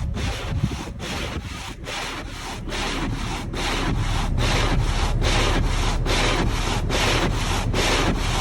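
Snow being brushed or scraped off a car in quick, even strokes, about three a second, with a low rumble underneath that grows louder partway through.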